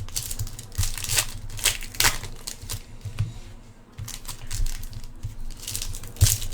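Trading-card packs being handled: wrappers crinkling, with cards rustling and light clicks at irregular moments.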